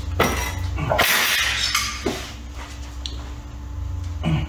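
A 1/8-inch steel plate scraping and clanking against a hand-operated sheet-metal brake as it is worked free: a knock, then a loud scrape about a second in, another knock about two seconds in and one near the end. A steady low hum runs underneath.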